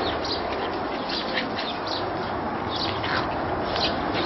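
Birds chirping: short, high chirps about twice a second, a few falling in pitch, over a steady background hiss.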